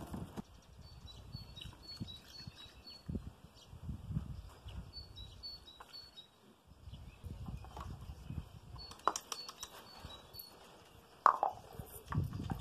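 Knocks and rustles of a plastic fuel can and funnel being handled as a chainsaw's fuel tank is filled, with a sharp knock a little past eleven seconds in. Small birds chirp in short repeated runs of high notes in the background.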